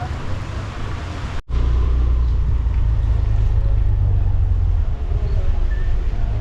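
Motorcycle on the move: a steady low engine and road rumble under wind noise on the microphone. The sound cuts out for a moment about a second and a half in, and the low rumble comes back louder.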